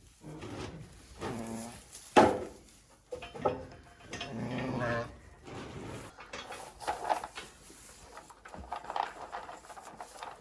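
Sheep bleating several times, with the loudest call a little over two seconds in and a long call around four to five seconds in.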